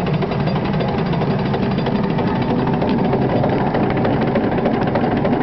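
Miniature steam locomotive running along its track, heard from the footplate: a loud, steady, fast rhythmic clatter.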